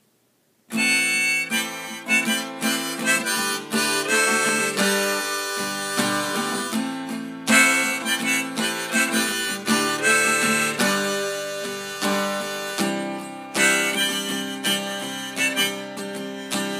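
Harmonica playing a melody over a strummed acoustic guitar, with no singing; the music starts suddenly about a second in.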